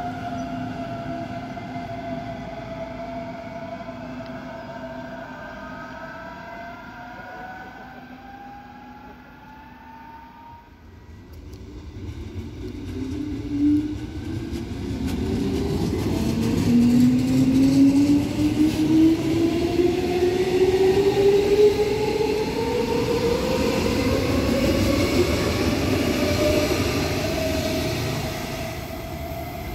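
A class 423 S-Bahn electric multiple unit pulls away, its traction drive whining up in pitch as it fades into the distance. Then an older class 420 S-Bahn unit comes past, louder, with wheel-on-rail rumble and a motor whine that climbs steadily in pitch as it accelerates.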